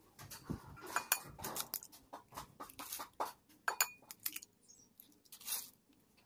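Eggs being cracked against a glass mixing bowl and their shells pulled apart over it: a string of light, irregular clicks and taps, with a short pause a little past the middle.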